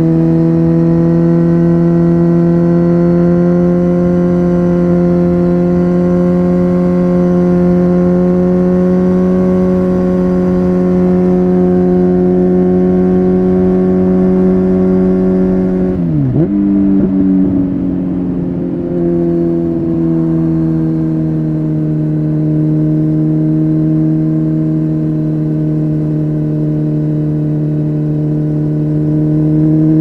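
Kawasaki Z900's inline-four engine through an Akrapovic carbon full-system exhaust, running steadily under riding load. About halfway through, the revs dip sharply and the note breaks up for a couple of seconds. It then settles at a slightly lower pitch and begins to climb again near the end.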